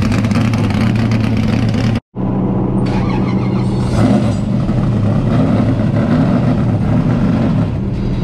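1988 Chevrolet Monte Carlo Aerocoupe NASCAR stock car's V8 running steadily at low speed as the car rolls slowly away. The sound cuts out for a moment about two seconds in.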